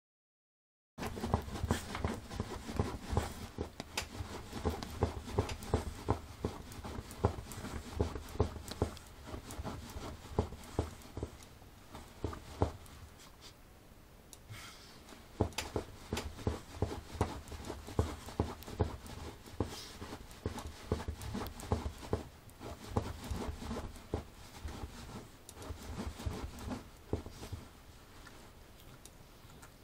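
Small curly-coated dog wriggling and rubbing itself against a fabric cushion: rapid, irregular scratching and rustling that begins about a second in, eases off briefly around the middle, then picks up again.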